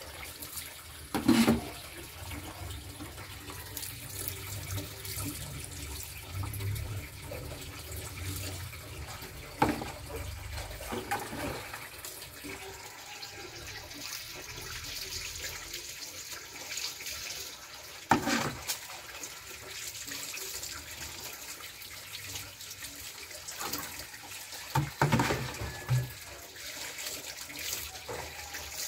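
Water being poured over a cat in a wire cage and splashing onto the tiled floor, a steady running sound broken by a few brief sharp knocks.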